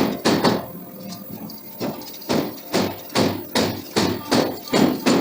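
Hammer blows striking steel being forged, a regular series of sharp, ringing strikes about two and a half a second. The strikes pause briefly about half a second in and resume about two seconds in.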